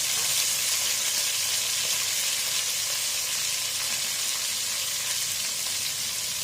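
Sliced zucchini and boiled meat sizzling as they fry in a pot, a steady frying hiss; no oil has been added yet, so they fry in the meat's own fat.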